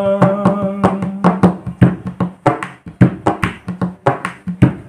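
Hindi film song music: a held note dies away about a second in, leaving a run of hand drum strokes in an uneven rhythm that stops just after.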